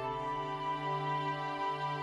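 Slow background music of long held chords, changing chord at the start.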